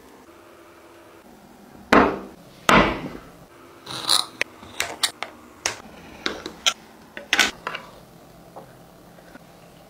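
Metal kitchen utensils and a glass baking dish knocking and tapping on a wooden cutting board: two loud knocks about two seconds in, then a quick run of sharp clicks and taps.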